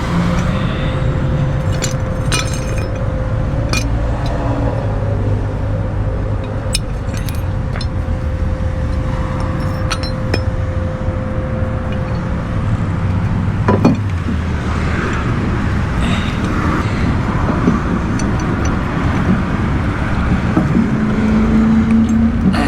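Vehicle engine running at a steady idle, with scattered metallic clinks and one sharp knock about 14 seconds in.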